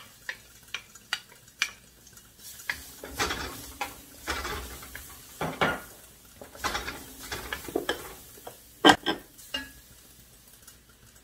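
Wooden spatula stirring and scraping minced garlic around a stainless steel wok, with the garlic sizzling in olive oil. Several sharp taps of the spatula come in the first two seconds, and a loud knock about nine seconds in.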